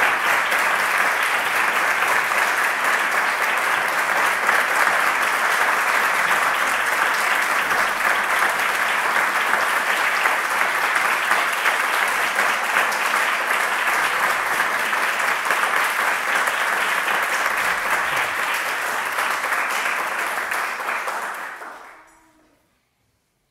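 Audience applauding steadily in a recital hall, fading out shortly before the end.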